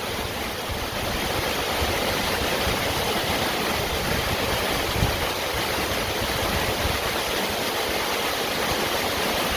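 Steady rush of water from a moorland stream waterfall, an even hiss with no breaks.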